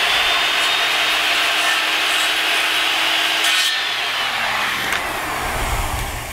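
Circular saw running and cutting through plastic garage-door weather-strip trim. About three and a half seconds in, the trigger is released and the motor's whine falls away as the blade spins down.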